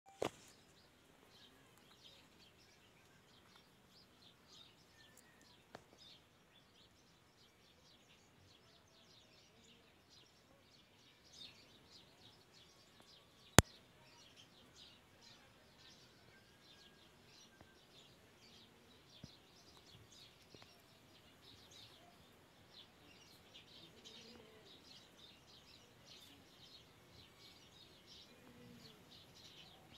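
Faint, busy chirping of birds in the background, many short chirps throughout. A sharp click comes right at the start, and a much louder single click about halfway through.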